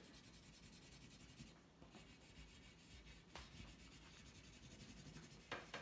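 Faint scratching of an oil pastel stick rubbed back and forth on paper, with a brief louder scuff near the end.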